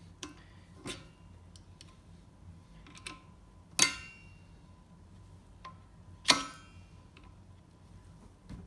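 Hand tools working metal at a heavy-duty bearing retaining clip: scattered light clicks and knocks, with two loud metallic strikes about 4 and 6 seconds in, each ringing briefly.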